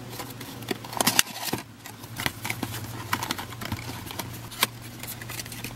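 Small cardboard box of business cards being opened and handled: irregular paper-and-card rustles and light clicks over a steady low hum.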